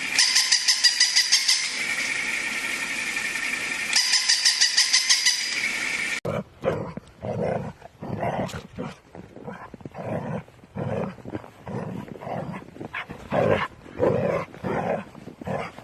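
A steady mechanical hum with a high whine, twice broken by a fast rattling buzz. It cuts off abruptly about six seconds in, and a dog barks over and over, about one or two barks a second.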